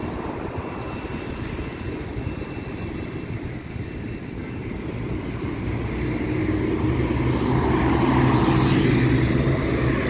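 Road traffic with wind rumbling on the microphone. About halfway through a car engine grows louder and passes close near the end.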